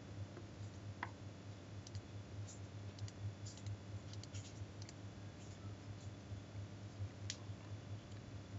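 A few scattered clicks from a computer mouse over a steady low hum.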